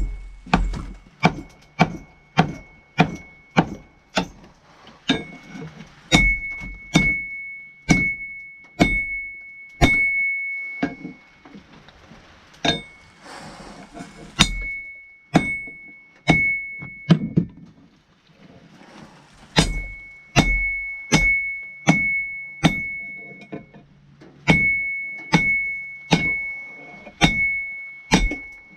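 Hammer blows on steel at an anvil while forging a wrench, about two strikes a second in runs with short pauses, the anvil ringing at a steady high pitch between blows.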